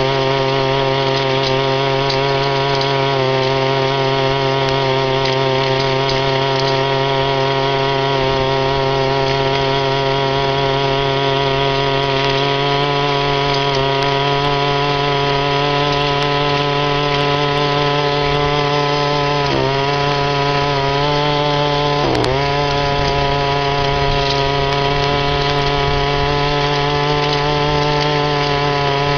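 A 25cc two-stroke weed eater engine on a motorized bicycle runs steadily at high revs under way. Its pitch dips briefly twice, about twenty seconds in and again two seconds later.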